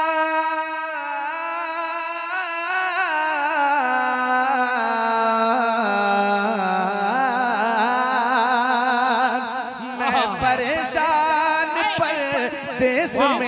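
Male naat singer drawing out one long, ornamented sung note into a microphone, with a wavering vibrato; the pitch sinks step by step over several seconds and then breaks into quick, winding runs near the end.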